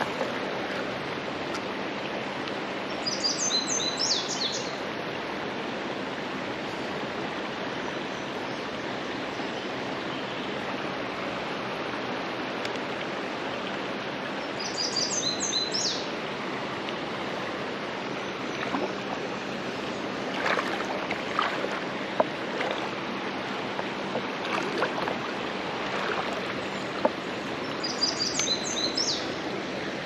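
Steady rush of shallow river water flowing over rocks. A bird sings the same short chirping phrase three times, about 3 s in, around the middle and near the end. A few sharp clicks and knocks come in the second half.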